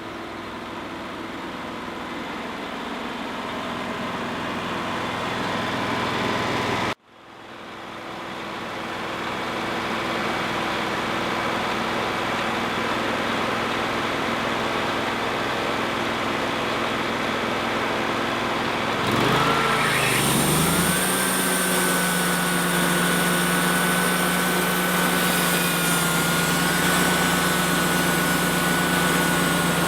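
Wood-Mizer LT35 portable sawmill running steadily. It breaks off for an instant about seven seconds in, and a little past two-thirds through its pitch dips and rises before settling into a steady hum with a higher whine.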